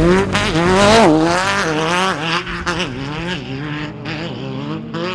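Off-road race vehicle's engine revving up and down repeatedly as the throttle is worked, growing fainter toward the end.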